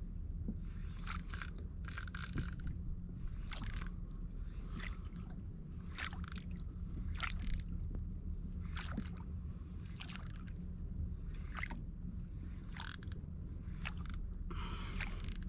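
Water slapping and sloshing against a kayak hull in short, irregular splashes about once a second, over a steady low rumble.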